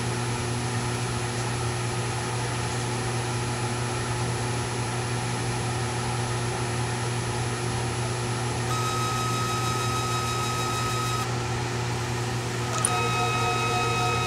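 Proxxon MF70 CNC mill running a marker test: a steady machine hum throughout, with the stepper motors whining at a steady pitch as the table moves, about two-thirds in and again near the end. A short click comes as the second move starts.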